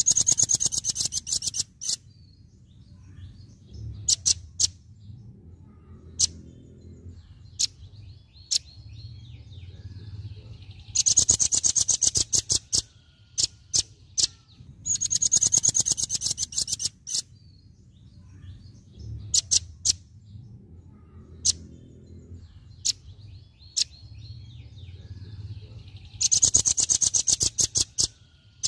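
Velvet-fronted nuthatch giving its rapid-fire 'tembakan' song: four loud bursts of very fast, high rattling notes about two seconds each, with single sharp chip notes between them.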